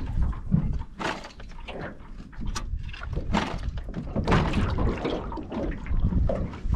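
Irregular knocks and clatter of a person handling fishing gear and moving about in a small aluminium boat, with water sloshing against the hull.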